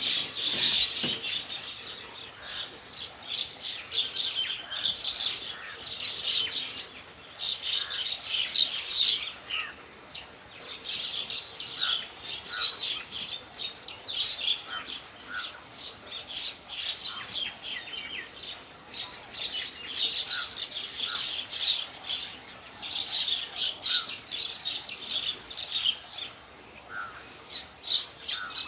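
Many small birds chirping in a dense, continuous chorus of quick, high chirps.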